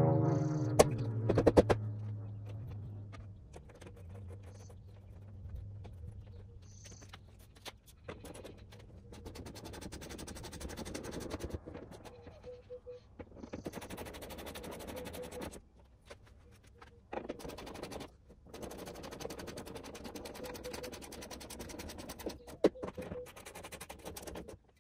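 Socket ratchet clicking in quick runs broken by short pauses, as the nuts holding the hood to its hinges are run down.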